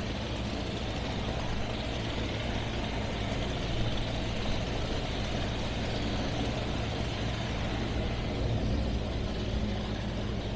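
Engines of a 38-foot Donzi ZRC performance boat running steadily, a low even hum under a constant rushing noise.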